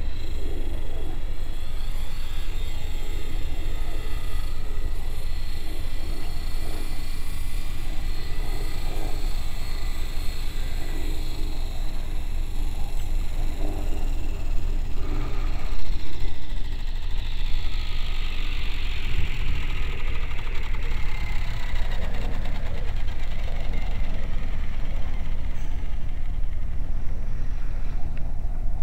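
HobbyKing HK500CMT electric RC helicopter in flight: the rotor and motor run steadily with a high-pitched whine, whose pitch slides down and back about two-thirds of the way in, while wind rumbles on the microphone.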